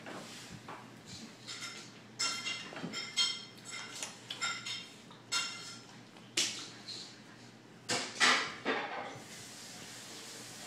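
A puppy and a ferret play-fighting, with a quick run of short, high-pitched sounds from about two seconds in until about nine seconds in, loudest around six and eight seconds in.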